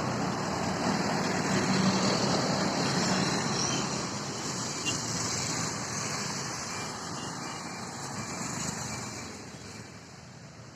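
Road traffic noise with a vehicle passing, loud for most of the stretch and fading away near the end.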